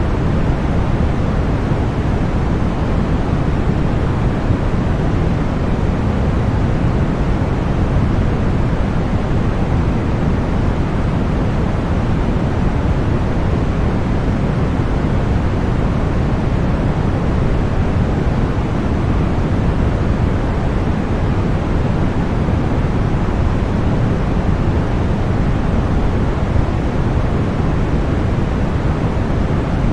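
Continuous deep white noise: a steady, unchanging rush, heavier and fuller at the low end than hissy at the top.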